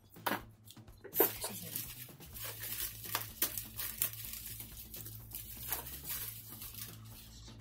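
Plastic bag of potting soil rustling and crinkling as it is handled and soil is scooped from it by hand, with many small clicks. Two sharp knocks come in the first second or so, the second the loudest.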